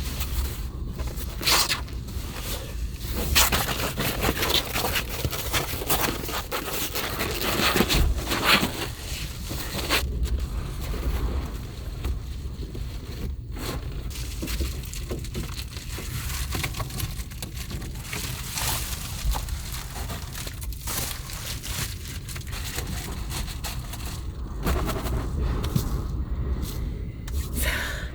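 Heavy storm rain beating on the roof and body of a Subaru Sambar kei van, a dense continuous patter with a low rumble of wind underneath.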